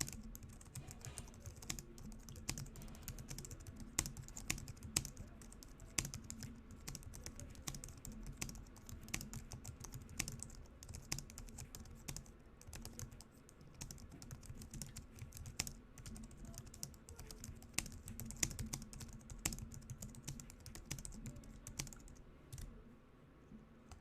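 Fast typing on a Logitech MX Keys keyboard's low-profile scissor-switch keys: a dense, irregular stream of key clicks that stops near the end.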